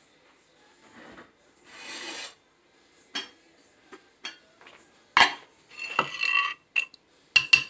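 Wooden pestle scraping and knocking against the inside of a clay mortar as chili, lime and sauces are mixed for papaya salad, in short irregular strokes. Near the end come a few sharp clinks, like a spoon against a metal pot.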